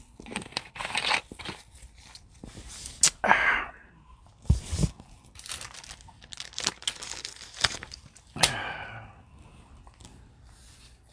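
Clear plastic packaging being handled, crinkling and tearing in a series of irregular rustles, with a couple of dull knocks about halfway through.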